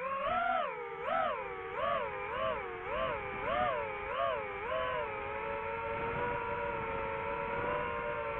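DJI FPV drone's motors and propellers whining, the pitch swinging up and down about one and a half times a second as the throttle varies, then settling to a steady hum about five seconds in.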